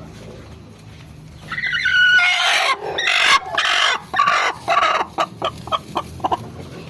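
Chicken calling: a loud drawn-out call starting about a second and a half in, followed by a run of short clucks that die away.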